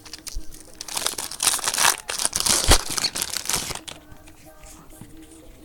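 Foil wrapper of a Bowman Draft Jumbo trading-card pack being torn open and crinkled. There is a dense run of crackling for about three seconds, which dies down near the end.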